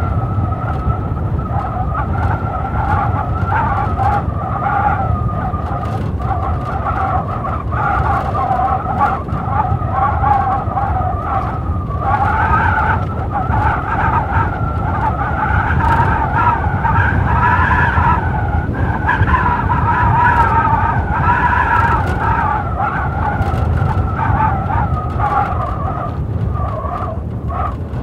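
Blizzard wind howling in two wavering tones over a low rumble of gusts, rising in pitch and strength about halfway through and easing near the end.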